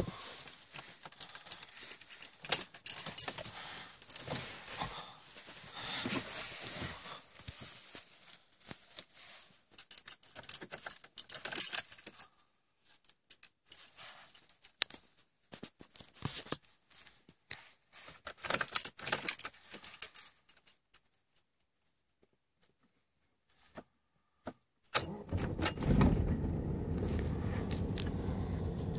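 Car keys jangling and clicking at the ignition for the first part, then a short quiet stretch. About three-quarters of the way through, the Audi A4's 1.9 TDI four-cylinder turbodiesel starts from cold at about −18 and settles into a steady idle.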